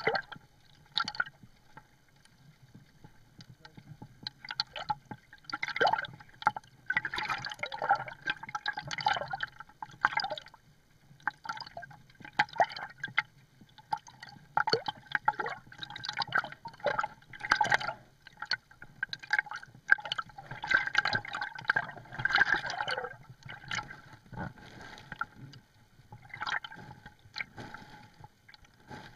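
Underwater bubbling and gurgling of a scuba diver's exhaled air, coming in bursts of a second or two every few seconds with quieter gaps between.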